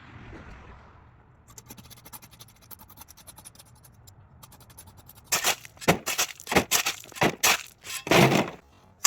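A metal hand tool scraping through gravel and dirt. After a few quiet seconds comes a run of quick, loud scraping strokes, about two or three a second, ending in a longer scrape.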